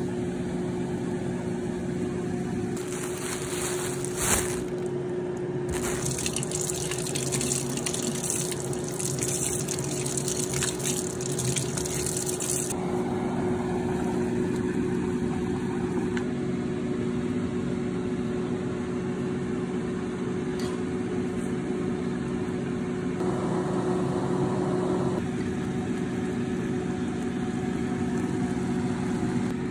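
Pot of instant ramen boiling on a stovetop, the water bubbling steadily over a low steady hum. From about three seconds in to about thirteen seconds in, a louder bright hiss and splashing rises over it as the noodles and greens are worked in the pot.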